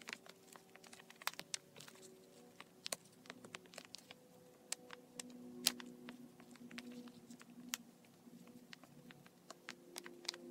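Fingers pressing and kneading soft candy paste into a small plastic mold, making many light, irregular clicks and sticky taps.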